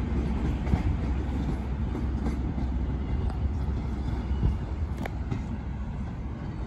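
Class 43 High Speed Train power car's diesel engine running as the train moves away, a steady low rumble that fades slightly. A single sharp click about five seconds in.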